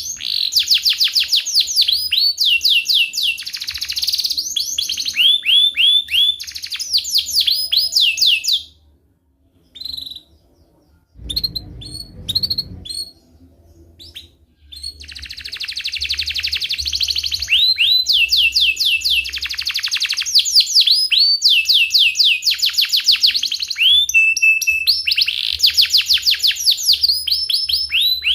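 Domestic canary singing long rolling trills of rapid, repeated falling notes. The song breaks off about nine seconds in, with only a few stray notes and a short low noise in the pause, and starts again about six seconds later.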